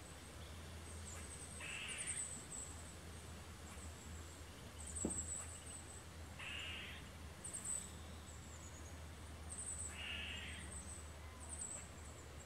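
Eastern gray squirrel giving its alert bark, a short harsh call repeated three times about four seconds apart: the alarm call squirrels give on spotting an intruder.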